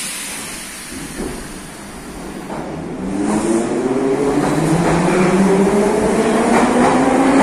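Metro train pulling away from the platform. About three seconds in, a whine of several tones from its electric traction motors starts and climbs steadily in pitch, growing louder as the train accelerates, over the noise of the rolling wheels.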